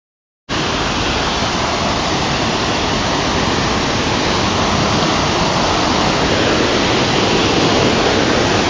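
Rain-swollen floodwater rushing steadily as it pours over an obstruction, starting abruptly about half a second in.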